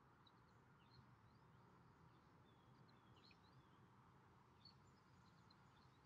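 Near silence with faint songbirds chirping in the distance: many short, scattered calls, some quickly rising or falling in pitch, over low steady background noise.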